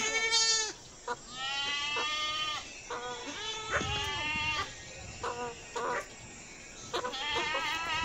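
Goats bleating: a series of about five or six wavering calls, some overlapping, with short gaps between them.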